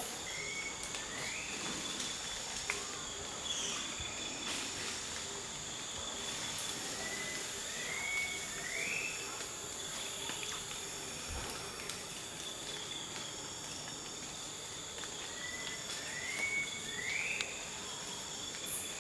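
Tropical forest insects trilling steadily in high, continuous tones. Three times over, a whistled call sounds: a short level note followed by a quick rising sweep.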